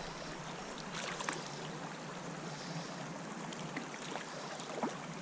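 Steady rush of flowing creek water, with a few faint, short ticks and splashes scattered through it.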